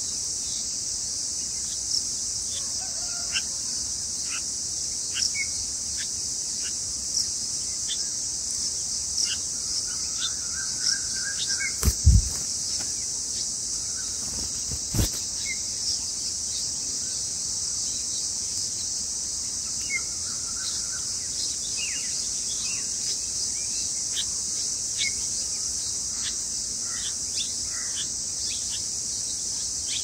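A steady, high-pitched drone of insects runs throughout, with scattered short bird chirps and a few brief whistled calls over it. There is a low thump about twelve seconds in and a sharp click about three seconds later.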